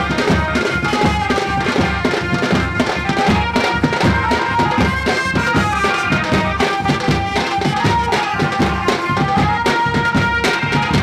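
Music: a fast, steady drum beat under a melody that moves in steps.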